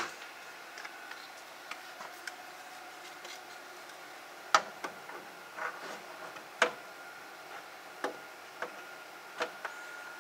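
Irregular clicks and knocks of a small metal-cased network device being handled and fitted against the perforated back panel and mounting hooks of a structured media enclosure. The two loudest knocks come about four and a half and six and a half seconds in. A faint steady high tone runs underneath.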